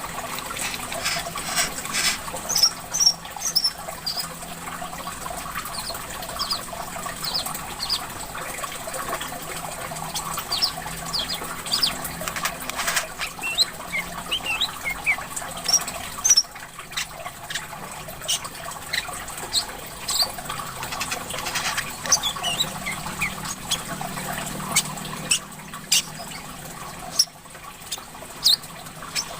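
Brown-throated sunbird (korlap, kolibri kelapa) calling in quick, short, high chirps and sharp notes, over a steady trickle of running water.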